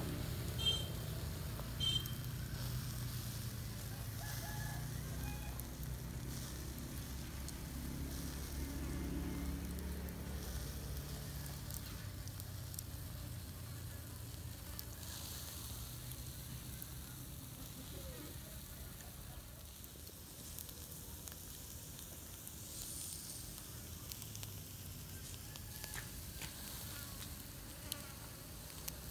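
Squid grilling on a wire rack over charcoal: a faint sizzle with a few small crackles, under a steady low buzzing hum.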